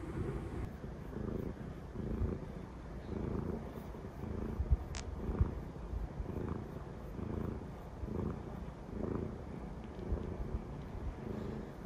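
Domestic cat purring close up while being stroked, the purr pulsing a little faster than once a second with each breath. A single brief click about five seconds in.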